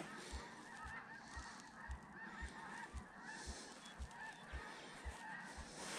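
A flock of waterbirds calling faintly, many short calls overlapping, with soft low thumps about twice a second.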